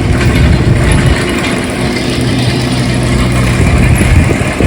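An engine running steadily at a constant speed, with a rushing hiss over it.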